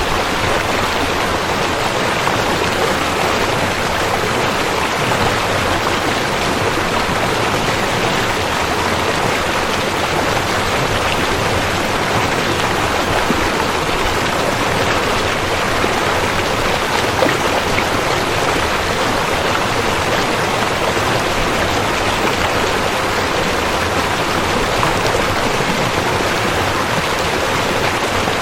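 River water flowing, a steady, unbroken rush of water noise.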